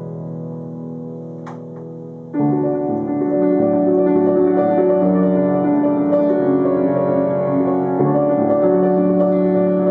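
Grand piano playing a slow, improvised classical-style piece: held notes ring softly, then about two and a half seconds in a louder, fuller chord is struck and sustained chords continue, shifting again near eight seconds.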